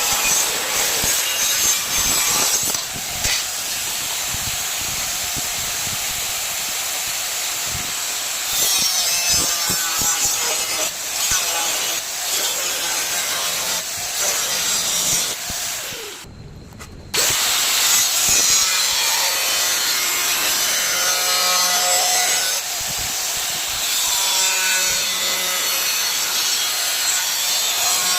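Power tool cutting or grinding metal, a steady harsh noise that breaks off briefly about sixteen seconds in, then carries on.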